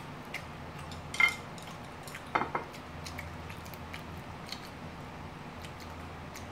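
Chopsticks clicking and tapping against ceramic plates and a small sauce cup: scattered light ticks, a sharper clink about a second in and a short run of clatter about two and a half seconds in, over a faint steady low hum.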